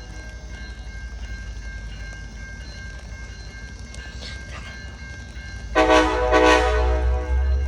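Amtrak Piedmont passenger train's locomotive horn sounding two blasts near the end, a short one then a longer one, over the low rumble of the train, which grows louder as the horn sounds.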